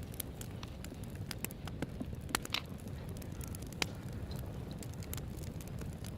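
Campfire crackling, with irregular sharp pops over a steady low rush.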